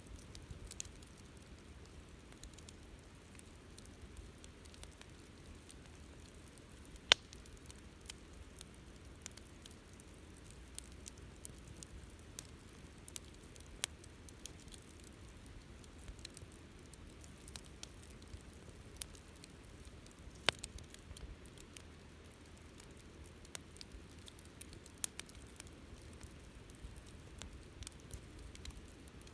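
Wood campfire burning: faint steady crackle with scattered small snaps and pops, and two louder sharp pops, one about seven seconds in and one about twenty seconds in.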